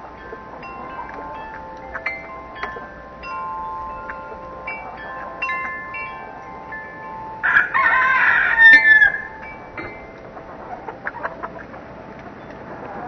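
Wind chimes ringing, single notes struck one after another and left to ring. A rooster crows once about halfway through, the loudest sound, its call falling away at the end.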